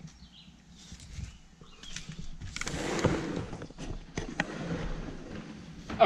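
Handling noises: a few scattered knocks and clicks, with a louder rushing noise for about a second around the middle.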